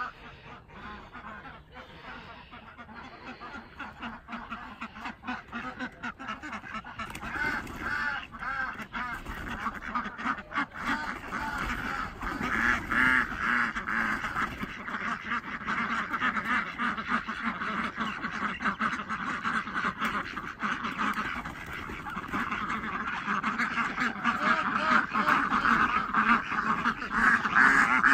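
A flock of domestic ducks quacking, faint at first, then swelling from about seven seconds in into a loud, dense chorus of overlapping quacks.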